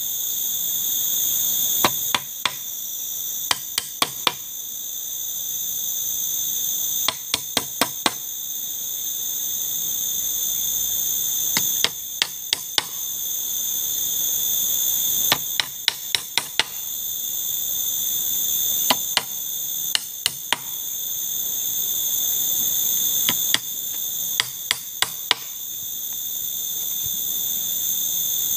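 Steady, high-pitched chorus of insects. About every four seconds it is broken by a quick run of three to five sharp knocks.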